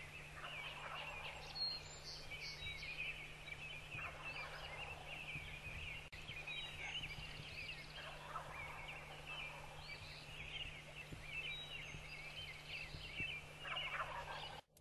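Eastern wild turkeys gobbling faintly in the distance several times, over continuous high chirping.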